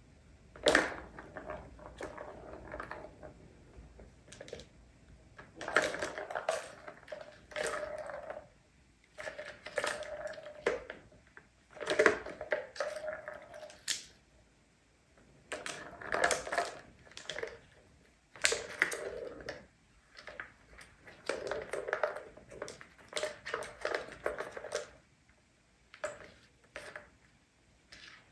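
Plastic balls rolling and clattering around the tracks of a tiered plastic cat tower toy as a kitten bats them, in bursts of a second or two that come again and again with short pauses between.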